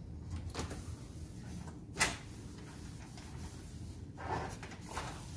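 Handling of a plastic motorcycle fairing panel as it is turned and wiped dry with a chamois cloth after wet sanding: a few light knocks and a short rustle of rubbing, with one sharp click about two seconds in.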